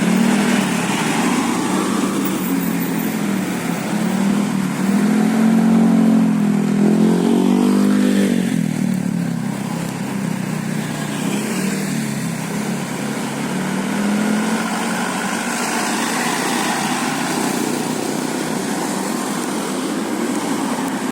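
Road vehicle engine running, its pitch wavering. It gets louder about five seconds in, pitch rising then falling away by about eight seconds.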